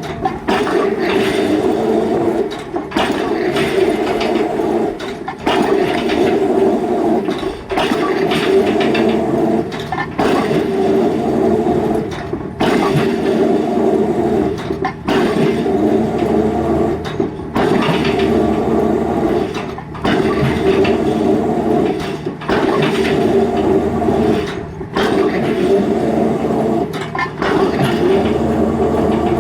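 Excavator-mounted drop hammer driving a concrete pile: a loud, steady heavy-machine din that breaks off briefly and starts again about every two and a half seconds, in time with the hammer's work cycle.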